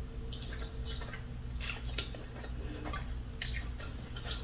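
Quiet, sporadic wet clicks of a person chewing food with the mouth closed, over a faint steady low hum.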